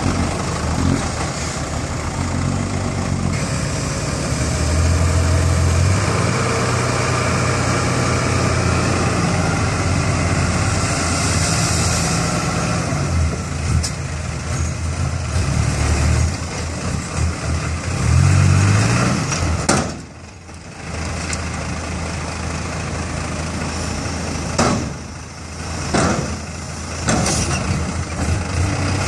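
Mitsubishi Fuso six-wheel dump truck's diesel engine running while the truck tips its bed to dump a load of soil. The engine revs up at times and idles between. It drops away briefly about two-thirds of the way through and picks up again near the end, with a few sharp knocks.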